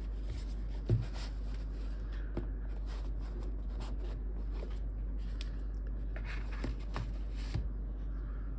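Paper and cardboard packaging being handled by hand: soft rustles and small taps, with one stronger thump about a second in, over a steady low hum.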